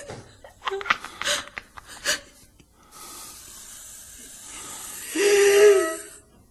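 A person's harsh, breathy gasps in short bursts, then a steady hiss, then a held moaning cry for about a second near the end.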